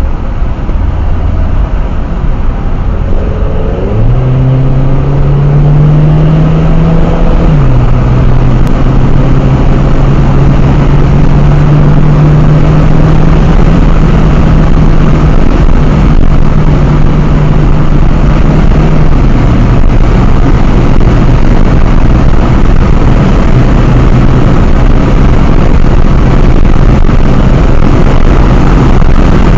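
Car engine and road and wind roar heard from inside the cabin at track speed. The engine note climbs through a gear, drops sharply at an upshift about seven and a half seconds in, then holds a steady drone that dips slightly about nineteen seconds in.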